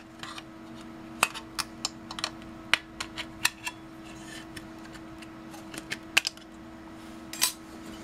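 Scattered sharp clicks and taps of a modem circuit board being handled and turned over in the hands, over a steady low hum.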